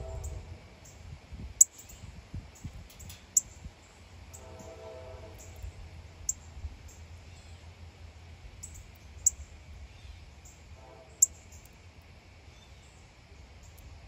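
Birds chipping: short, sharp, high chip calls come at irregular intervals, a few of them loud, over a low steady outdoor rumble. A faint hum with an even pitch comes in briefly twice, about four seconds in and again later.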